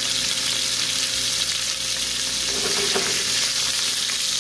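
Thin swordfish steaks sizzling steadily in hot olive oil with sliced garlic in a frying pan. Near the end a metal spatula is slid under one steak to turn it.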